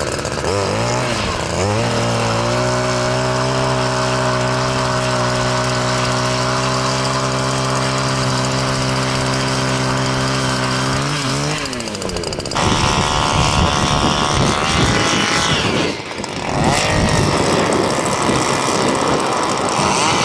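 Gas-powered ice auger engine revving up and running at a steady high speed for about ten seconds while drilling through the ice, then throttling down. Another auger engine runs, rougher and higher-pitched, through the rest.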